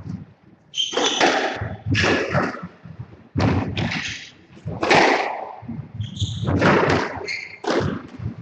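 Squash rally: the ball struck by racquets and slapping off the court walls, around a dozen sharp hits with a short echo after each, at irregular intervals of about half a second to a second.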